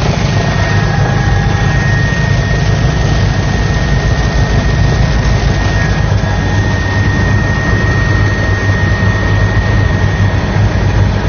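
Steady aircraft cabin noise from inside a helicopter: engine and rotor running continuously, with a constant high turbine whine over a low rumble.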